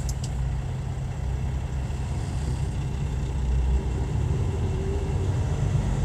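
Steady low engine and road rumble heard from inside a vehicle's cabin as it rolls slowly in heavy traffic.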